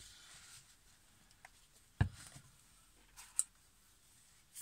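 Faint handling and folding of a blue paper towel, with a single knock about two seconds in and a short sharp click over a second later.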